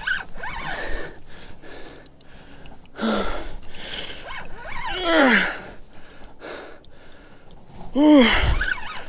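A man breathing hard, with gasps and strained groans from the effort of fighting a big white sturgeon on a bent rod; one groan slides down in pitch about five seconds in, and the loudest comes near the end.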